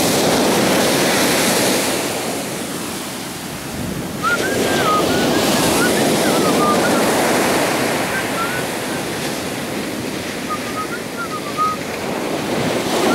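Large ocean surf breaking and washing up the beach: a continuous rush of churning water that eases for a moment, then surges again as a new wave comes in about four seconds in.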